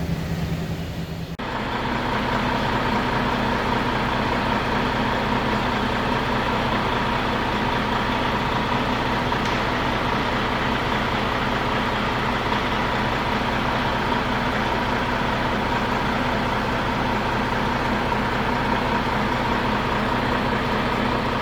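Freshly rebuilt Volvo D13 inline-six diesel truck engine idling steadily at operating temperature.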